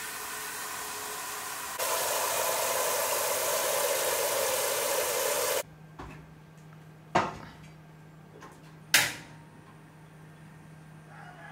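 Kitchen faucet running into a stainless steel strainer set in a pot: a steady rushing that gets louder about two seconds in and cuts off suddenly a few seconds later. Then two sharp knocks.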